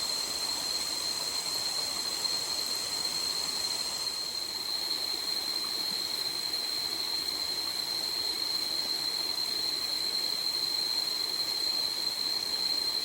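Jungle insects, likely cicadas, giving a steady high-pitched drone over a soft hiss of forest background noise.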